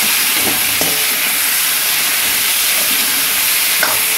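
Jackfruit and potato pieces sizzling in hot mustard oil in a kadhai while being stirred with a steel ladle: a steady frying hiss with a few faint strokes of the ladle.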